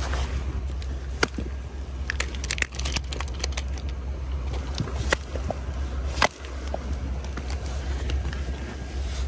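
Rounded creek-bank stones clacking and shifting under rubber boots, a handful of separate sharp knocks with the sharpest about a second in and again around six seconds, over a steady low rumble.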